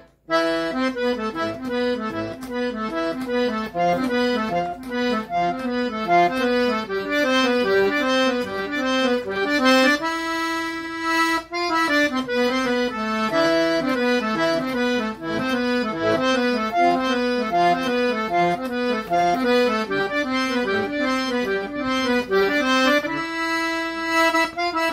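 Accordion (sanfona) playing an instrumental introduction: a running melody of quick notes, with a held chord about ten seconds in and another near the end.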